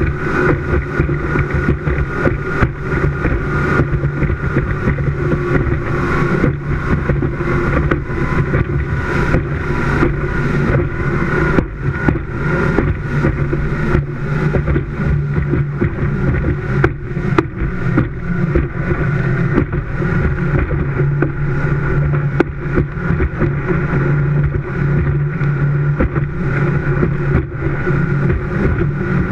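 Speedboat running at high speed. Its engine drones steadily under the rush of wind and water, with frequent short thumps as the hull meets the chop.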